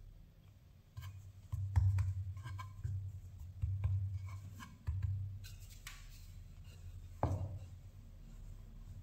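Hands pressing and patting a ball of dough flat on a floured wooden board, with a few dull thumps and light rubbing and clicking, then a sharper knock about seven seconds in as a wooden rolling pin comes onto the board.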